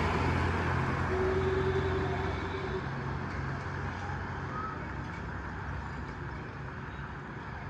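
A motor vehicle's engine running close by, its low hum fading away over the first few seconds as it passes, leaving quieter street traffic noise.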